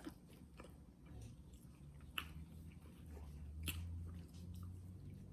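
A person chewing food close to the microphone, with a couple of soft clicks of biting and a low hum beneath.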